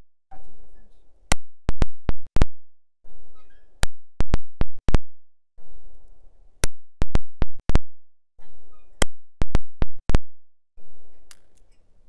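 Four shots from a Charter Arms Pug .357 Magnum snub-nose revolver firing full .357 Magnum loads, about two and a half seconds apart, each heard as a quick crackling cluster of sharp cracks.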